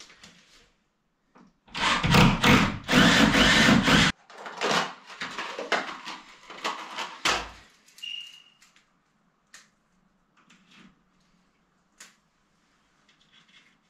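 Power drill boring into the wall for pipe clips: one run of a couple of seconds that stops abruptly, then several shorter bursts, followed by a brief beep and light knocks of handling.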